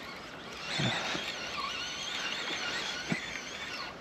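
Spinning reel being cranked, its gear whine wavering in pitch with the turning handle, over steady outdoor wind noise, with a couple of soft knocks.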